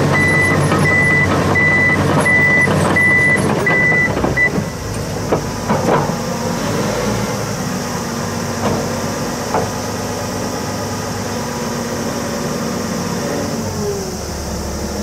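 Komatsu D155AX bulldozer's diesel engine running, with its reversing alarm beeping steadily until it stops about four seconds in. A few short clanks follow as the engine runs on.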